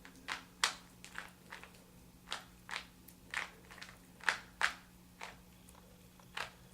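Plastic Rubik's Cube layers being turned by hand while scrambling it, giving about a dozen short, sharp clacks at an uneven pace of one to two a second.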